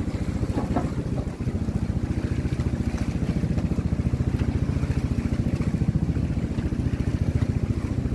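An engine on the fishing boat running steadily, with a fast, even pulsing beat.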